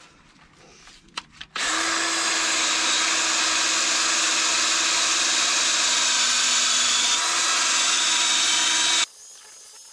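Ryobi cordless drill spinning a wire cup brush against a rusty flywheel, scrubbing off rust. It starts after a second and a half, runs steadily at full speed, and stops suddenly near the end.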